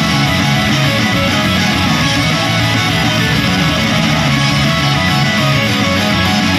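Loud, steady guitar-driven rock music with strummed guitar.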